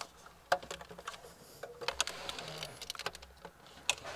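Plastic clicks and light clatter of car wiring connectors being handled and plugged into the back of a head unit, with two sharper clicks about half a second in and near the end.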